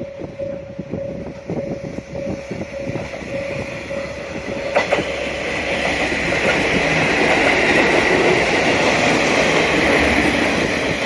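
JR Kyushu 2R-series "Kanpachi" diesel railcar train passing close by. Its engines and wheels on the rails swell from about five seconds in into a loud rumble and hiss, with clicks as the wheels cross the rail joints. Before the train draws level, a warning bell dings about twice a second.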